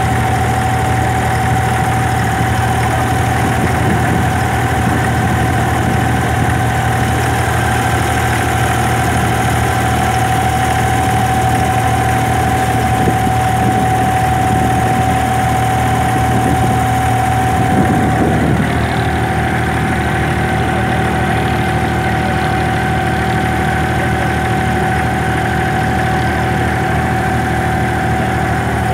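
Inboard diesel engine of a wooden abra water taxi running steadily, heard from aboard: a low hum with a steady higher tone over it. The engine note changes briefly about two-thirds of the way through.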